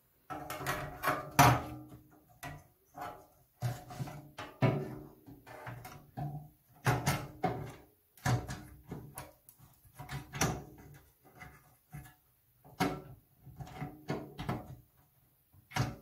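A computer motherboard being shifted and pressed down into a metal PC chassis to seat it on its plastic standoffs: repeated, irregular knocks and clatters of the board against the steel case, some with a brief ring.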